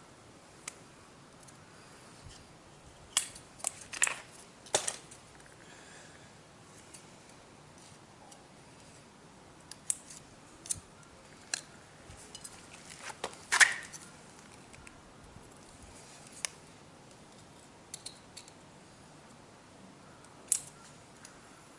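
Scattered small clicks and knocks of hands and tools working on a dismantled motorcycle front brake, about a dozen in all at irregular intervals, the loudest a little past the middle.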